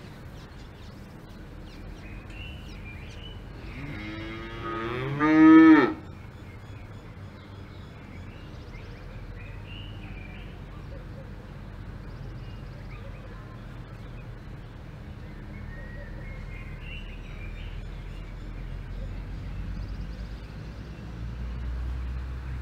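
A cow mooing once about four seconds in: one loud call of about two seconds that rises in pitch. A steady low rumble of background ambience runs under it.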